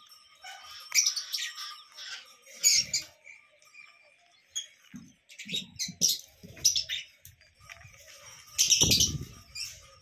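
Small pet parrots in an aviary calling in short, sharp chirps and squawks, in irregular bursts, the loudest coming near the end.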